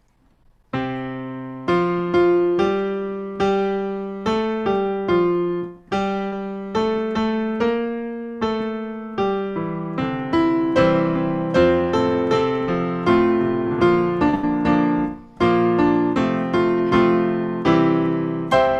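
Piano playing a slow hymn introduction in full chords, each chord struck and left to ring and fade, starting just under a second in after a brief silence.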